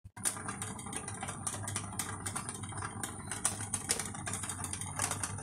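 Saffron seafood risotto bubbling in a pot on the stove: a steady hiss full of small irregular pops and clicks, over a low steady hum.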